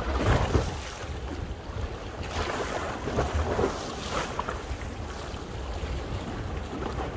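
Wind buffeting the microphone over sea waves washing in, the hiss swelling and easing several times.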